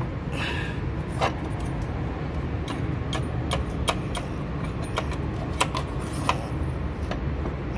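Metal spark-plug socket and extension bar clinking against the plug wells of a Mitsubishi Lancer's engine while the spark plugs are changed: a string of sharp, irregular clicks, thickest in the middle. A steady low rumble runs underneath.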